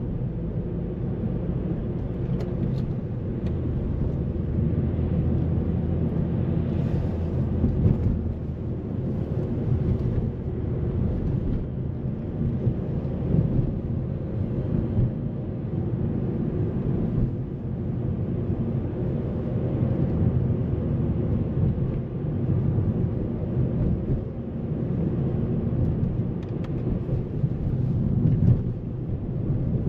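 A 2008 Mazda 3's 2.0-litre four-cylinder petrol engine running steadily while the car is driven, heard from inside the cabin. Its note shifts a little up and down as it goes.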